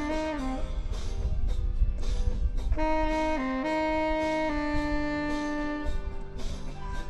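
Selmer Mark VI saxophone playing a melody over an accompaniment track: a few short stepping notes, then long held notes from about three seconds in.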